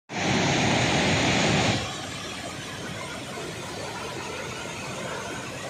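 Swollen, muddy floodwater rushing over rocks and a waterfall: a steady noise that is much louder for the first couple of seconds, then settles to an even, lower level.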